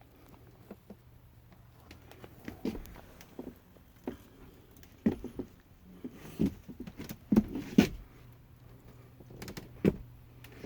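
Irregular knocks and thumps of a person moving about on attic boards, with a few heavier thuds in the middle and near the end, over a faint steady low hum.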